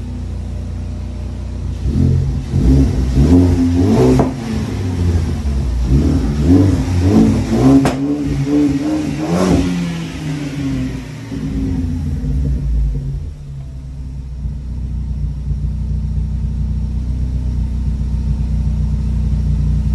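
2013 Ford Focus ST's turbocharged 2.0-litre four-cylinder idling through a 2.5-inch Magnaflow exhaust, then revved in several quick blips from about two seconds in to about ten seconds in, before settling back to a steady idle.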